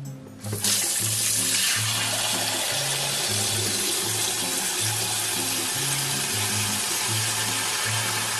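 Tap water running steadily into a pot, filling it to cover the eggs; the rush starts about half a second in. Background music plays under it.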